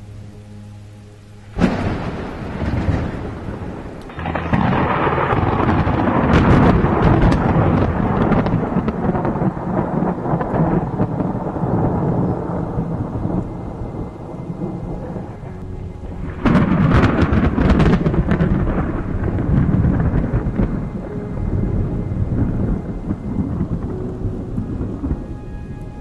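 Thunder cracks suddenly about two seconds in and again past halfway, each crack rolling into a long, heavy rumble over a downpour of heavy rain.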